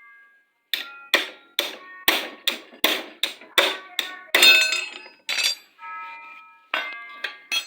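Metal struck sharply and repeatedly, about a dozen strikes at roughly two a second, each with a short ringing tone. There is a brief pause before a last few strikes near the end.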